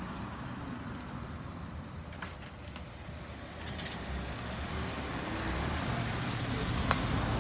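A road vehicle's engine and tyres over steady street noise, growing louder in the second half as it draws near. A single sharp click near the end.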